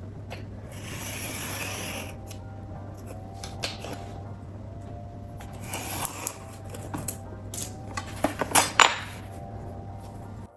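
Paper cardstock being handled and cut with scissors: rustling and a series of sharp snips, the loudest a couple of seconds before the end.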